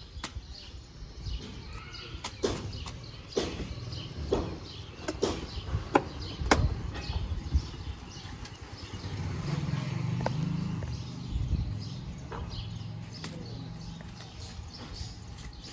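Green corn husks being torn and snapped off fresh corn cobs by hand: a run of sharp, crisp snaps and tears. A low steady rumble swells and fades between about nine and twelve seconds in.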